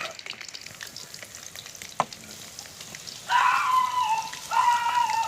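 Crushed ginger and garlic sizzling in hot oil in a pan: a steady crackling hiss with one sharp tick about two seconds in. From about three seconds in, two louder held, pitched calls from another source sound over it.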